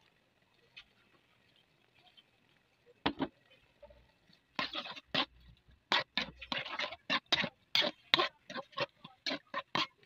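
A utensil knocking and scraping against a metal pan while ground pork is stirred. It is quiet for the first three seconds, then comes a quick, irregular run of sharp clacks and scrapes.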